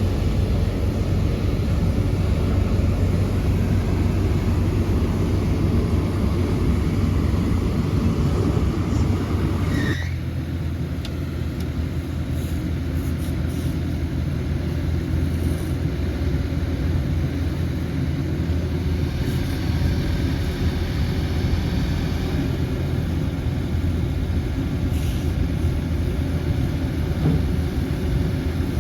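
Sany SY80U excavator running steadily with a low hum. A rising whine stops abruptly about ten seconds in, after which the running is a little quieter.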